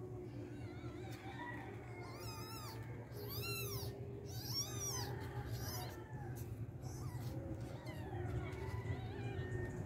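Newborn kitten mewing: three short, high-pitched cries, each rising and then falling in pitch, about two to five seconds in, followed by fainter mews.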